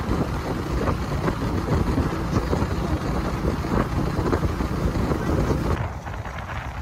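A moving vehicle's running noise with wind rumbling on the microphone; it eases a little near the end.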